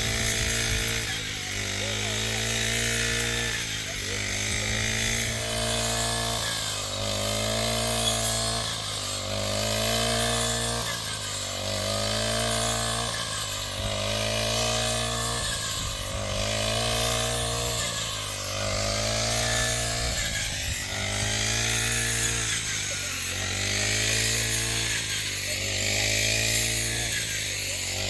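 A motor-driven machine running with a steady low hum, its drone rising and falling in pitch in a regular cycle about every two seconds.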